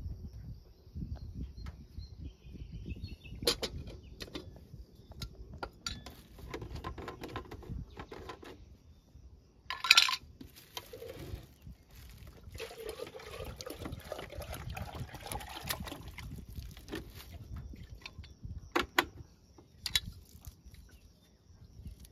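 Water pouring from a plastic jerrycan into a metal kettle for a few seconds, about halfway through. Scattered sharp knocks and clinks of containers being handled come before and after the pour, the loudest just before it.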